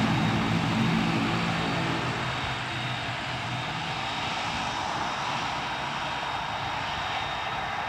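Both turboprop engines of an American Eagle ATR airliner running at power: a low propeller drone with steady turbine hiss, strongest at the start and slowly fading as the aircraft moves away down the runway.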